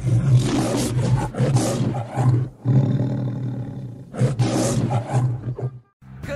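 The MGM logo's lion roar: a lion roaring in two loud bouts, the second about four seconds in, with a lower stretch between them. It cuts off suddenly near the end.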